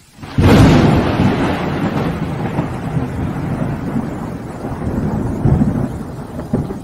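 Thunderstorm sound effect. A sudden loud crack of thunder comes a split second in, followed by a long rolling rumble that swells again near the end.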